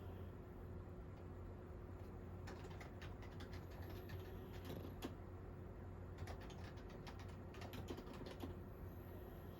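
Computer keyboard typing in irregular runs of keystroke clicks, starting a couple of seconds in, over a steady low hum.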